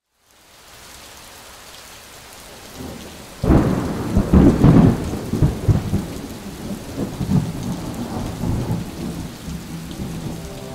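Thunderstorm: steady rain, then a loud thunderclap about three and a half seconds in, rolling on in rumbles that slowly fade.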